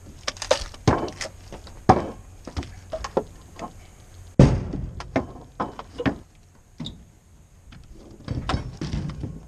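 Wooden boards knocking and thudding as salvaged lumber is handled: an irregular series of knocks, with one heavy thud about four and a half seconds in.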